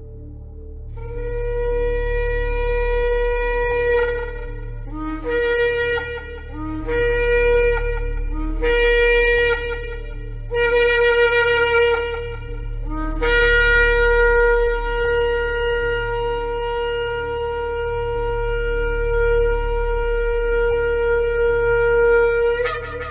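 Shofar (ram's horn) blowing: a held blast, then four shorter blasts, then one long sustained blast that ends with a sharp upward flip in pitch. Each blast starts briefly on a lower note before breaking up to the main higher note.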